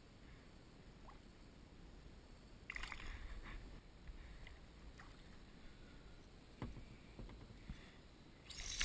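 Faint water sounds beside a kayak as a small bass is lowered into the creek and released, with a short splashy rush about three seconds in and a single sharp knock later on.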